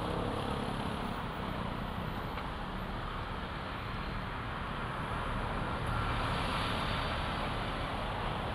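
Steady road traffic noise with a low, even engine hum underneath.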